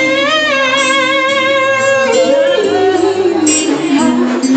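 Female singer holding one long sung note, steady for about two seconds and then sliding down in pitch, over band accompaniment with guitar.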